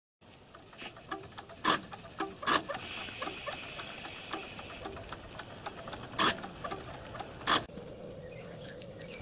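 7¼ in gauge miniature live-steam locomotive running under steam on its stand, with fast light mechanical ticking from the motion and a soft steam hiss. Four sharp louder knocks stand out.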